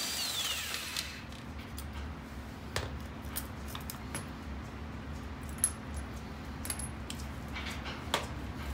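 An impact wrench whining as it spins down, the pitch falling away over the first second after a burst on a wheel's lug bolt. Then scattered light metallic clinks and taps, some with a brief high ring, over a steady low hum.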